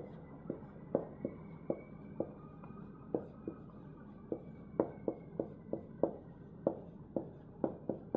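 Dry-erase marker writing on a whiteboard: a run of short, irregular taps and strokes, about two or three a second, as letters are written out.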